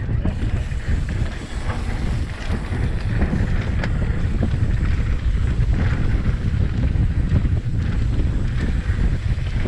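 Wind buffeting the microphone of a rider-worn action camera on a mountain bike descending a dirt singletrack: a steady low rumble with small clicks and rattles from the bike.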